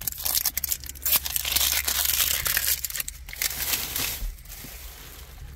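Plastic packaging of a toy egg crinkling and tearing as it is unwrapped. The crackle is dense for about four seconds, then thins out.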